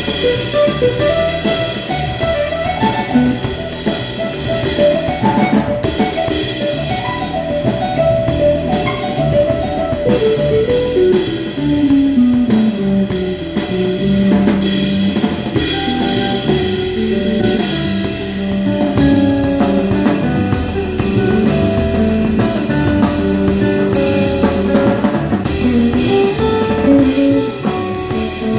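Live instrumental jazz-trio music: a guitar plays a melodic line over a drum kit. About ten seconds in, the guitar line runs down in pitch and settles on lower held notes.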